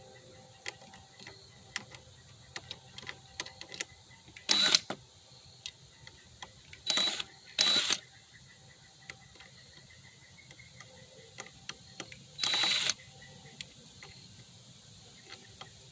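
Four short whirring bursts of a small motor, each under a second, with scattered light clicks and taps between them.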